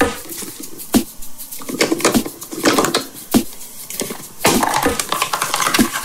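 Hollow plastic nesting egg being twisted and pried apart by hand: a series of sharp plastic clicks and knocks, with scraping and rubbing of the plastic halves in between.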